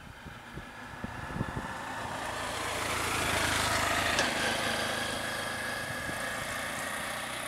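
A small vehicle engine running close by. It grows louder over the first three or four seconds, then runs steadily. There is a single sharp click a little after four seconds.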